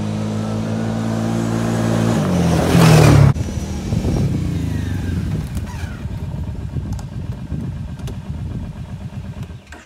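Four-wheeler ATV engine running steadily as the quad is ridden up. It swells into a loud rush that cuts off sharply about three seconds in, then runs on at a lower, uneven idle.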